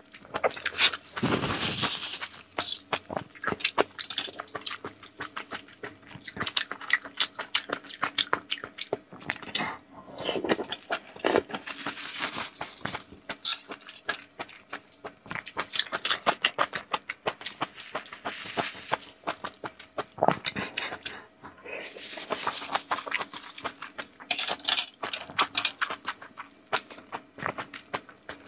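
Close-up wet chewing and smacking of a person eating soft steamed scallops, a dense run of short clicks in clusters with brief pauses between mouthfuls.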